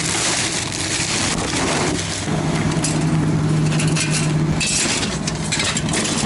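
Clear plastic bag stuffed with scrap wire crinkling and rustling as it is carried and handled, over a steady low hum.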